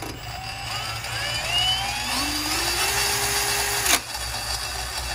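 Milwaukee brushless cordless drill mounted on a minibike, run on its trigger to spin the go-kart rear wheel through its drive belt. The motor whine rises in pitch as it speeds up, holds steady, then stops suddenly with a click about four seconds in.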